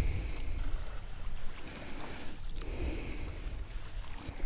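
Water lapping and splashing around a paddleboard, a few brief hissing splashes, over a low rumble of wind on the microphone.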